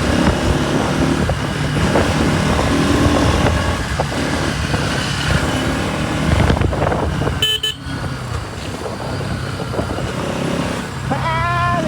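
Bajaj Pulsar NS200's single-cylinder engine running at riding speed, heard under steady wind and road noise. A vehicle horn honks briefly about seven and a half seconds in.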